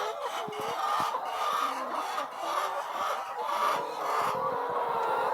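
A flock of laying hens clucking, many overlapping calls at once, with a few light clicks among them.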